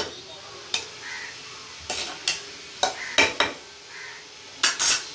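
A spoon stirring rice in a pressure cooker pot, scraping and knocking against the pot about eight times, over a steady simmering hiss from the liquid.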